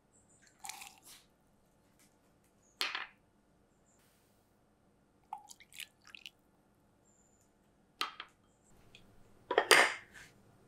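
Ingredients going into hot water in a glass measuring cup for a fish-sauce noodle dressing: a handful of short pours, drips and clinks against the glass, the loudest near the end.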